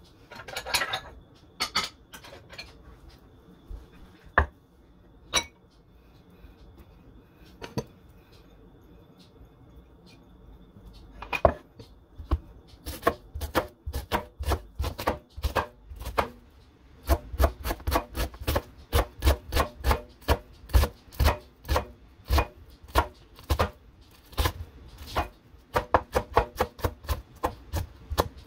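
Knife chopping on a cutting board: a few scattered knocks at first, then from about halfway through a steady run of quick chops, about three a second.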